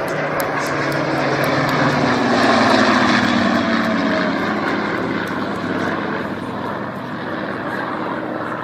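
Propeller airplane engine passing by, growing louder to a peak about three seconds in, then fading with its pitch dropping slightly.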